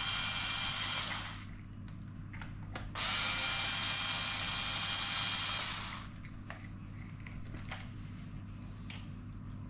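Small cordless electric screwdriver whirring in two spells, backing out the screws of an RC car's receiver box: the first stops about a second in, the second runs for almost three seconds from about three seconds in. Light clicks and taps of small parts being handled follow.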